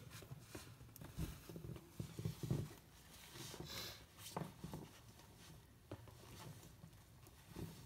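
Faint, irregular crunching and rustling of snow, with a few low thumps about two seconds in.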